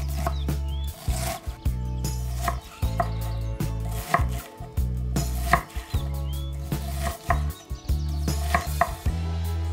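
Chef's knife cutting through an onion and knocking on an end-grain wooden cutting board, sharp strokes at an uneven pace of about one or two a second, over a steady low hum.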